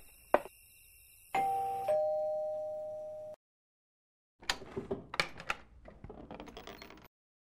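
Two-tone ding-dong doorbell rung once: a higher chime, then a lower one ringing out for about two seconds. After a short pause comes a run of clicks and knocks lasting nearly three seconds.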